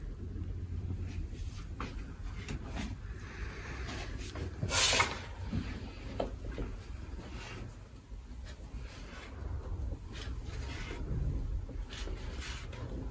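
Hands pressing and rubbing on a patient's back and shoulder on a treatment table, with soft rustling of the table cover and clothing. A brief, louder rustle or knock about five seconds in.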